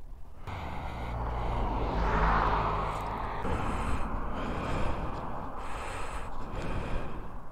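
Wind buffeting the microphone: a rushing noise that swells about two seconds in and then eases, with low rumble under it.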